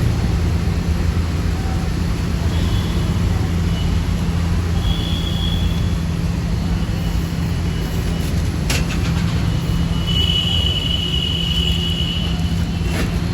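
Steady street traffic rumble, with a few short, thin high-pitched tones and two sharp clicks.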